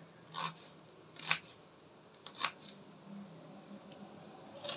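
Kitchen knife slicing through an onion and tapping the wooden cutting board: three crisp cuts about a second apart.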